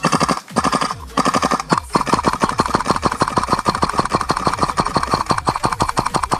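Gas blowback airsoft AK rifle firing on full auto: three short bursts, then a long unbroken string of rapid shots with the bolt cycling sharply.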